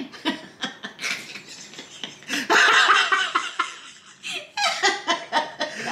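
A man and a woman laughing hard in broken bursts, loudest about halfway through.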